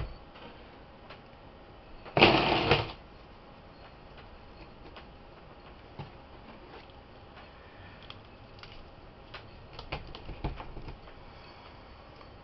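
Crumbly bath bomb mixture being handled over a plastic bowl and packed into a metal bath bomb mold: a short, loud scraping rustle about two seconds in, then scattered light clicks and taps, with a small cluster near the end.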